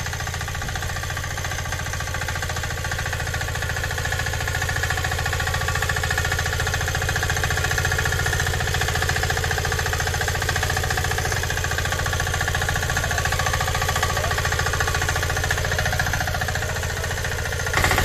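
Walk-behind power tiller's small engine running steadily as its rotary tines churn through soil, a little louder near the end.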